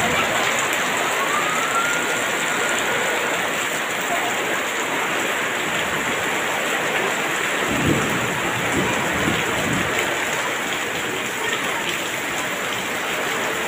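Heavy rain pouring down steadily and splashing on wet ground, with a brief low rumble about eight seconds in.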